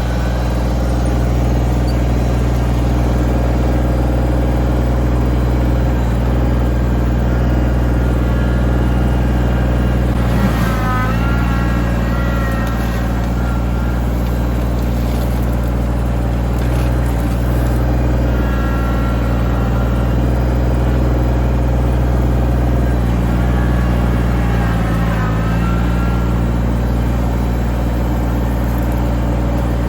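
An engine running steadily under a heavy, even hum. A higher wavering tone comes in briefly about ten seconds in and again about twenty-five seconds in.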